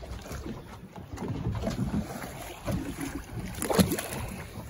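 Choppy seawater slapping against a small boat's hull, with wind buffeting the microphone. A louder splash near the end as the released ray hits the water.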